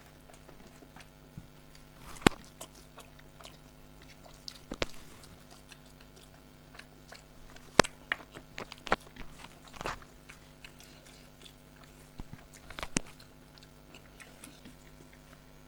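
Close-up eating sounds as rice and chicken curry are chewed, with scattered sharp clicks and smacks, the loudest about two and eight seconds in, over a faint steady hum.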